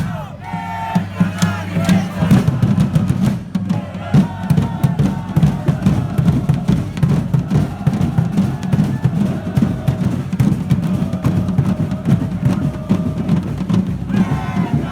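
Correfoc drum band (tabals) pounding out a fast, driving beat, with crowd shouts near the start.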